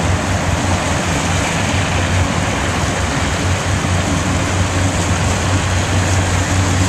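Steady motorboat engine drone with a low hum, mixed with water and wind rushing past a moving boat.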